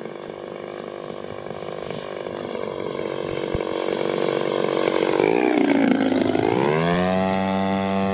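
Engine and propeller of a 1/3-scale radio-controlled Cessna 182 Skylane flying past. The engine note grows louder as the plane approaches, peaks about three-quarters of the way in, and drops in pitch as it goes by, then holds a steady, lower note.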